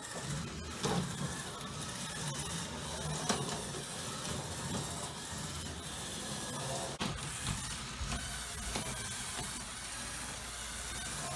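Small electric motors and plastic gearing of LEGO Technic battlebots whirring as they drive and push across a plywood arena floor, with a few sharp knocks where they bump.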